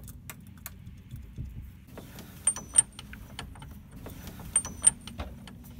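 Small metal parts of a propeller shaft seal and its flange bolts clicking and clinking as they are handled, with two pairs of sharper ringing clinks about two seconds apart. A low steady hum runs underneath.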